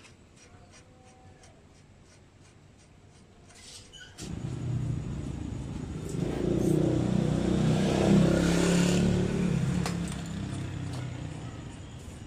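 After a few seconds of faint regular ticking, a motor vehicle engine starts up loud about four seconds in, swells to its loudest in the middle and then fades away, as of a vehicle passing close by.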